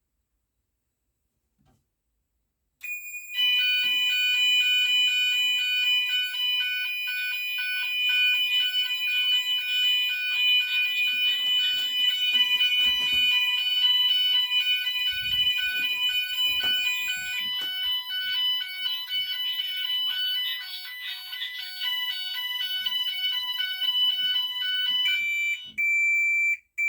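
GENT Vigilon fire alarm sounders going into alarm, set off by smoke test spray on an optical detector. A steady high tone starts about three seconds in, joined at once by a loud alternating two-tone pattern. Near the end the alternating tones stop and a single steady tone sounds briefly.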